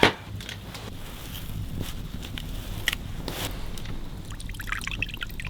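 Wood campfire crackling: scattered sharp pops, one loud pop at the very start and a quick run of small ticks near the end, over a steady low rumble.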